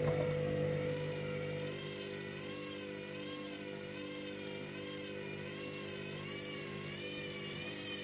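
Candy front-loading washing machine turning its drum with a load of laundry during the spin. The motor gives a steady hum and a whine that wavers up and down in pitch in an even rhythm, the load still out of balance on the second spin.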